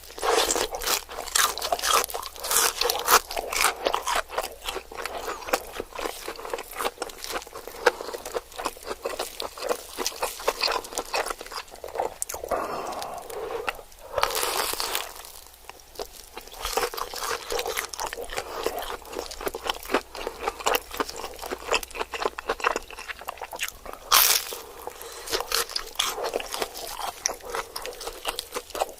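Cheese fingers being bitten and chewed close to the microphone: a dense run of crisp crunches, with a louder bite about halfway through and another a few seconds before the end.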